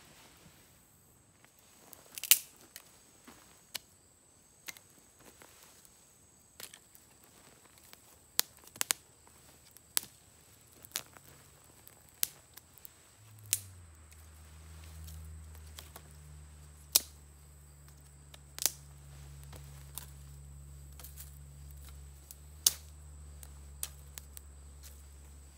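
Small wood campfire crackling, with sharp, irregular pops scattered throughout, one loud pop about two seconds in. About halfway through a steady low drone starts underneath and carries on.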